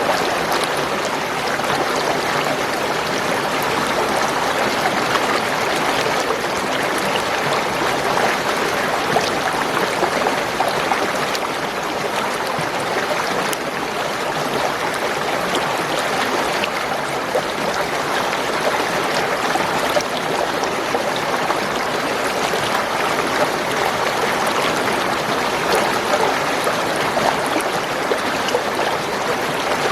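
Spring water running and gurgling in a steady, unbroken flow, with fine splashes and drips scattered through it.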